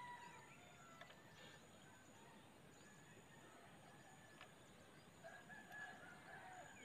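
Near silence, with a rooster crowing faintly about five seconds in, lasting over a second.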